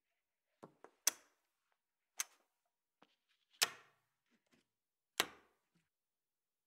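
Wooden and plastic toy pieces of a BRIO Magnetic Dachshund clacking together as their magnets snap them into place, with lighter taps as the pieces are handled on the table. There are four sharp clacks, about a second or more apart.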